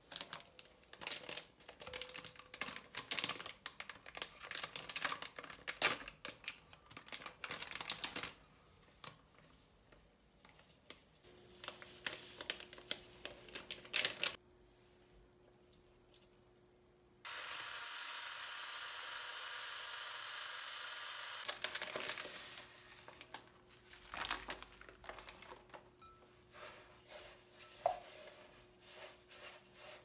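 Kitchen preparation sounds: a plastic bag of powder rustling and crinkling with quick clicks and taps for the first several seconds, then a steady pour of milk into a glass bowl for about four seconds, then a spatula stirring and scraping the thick mixture in the bowl in short strokes.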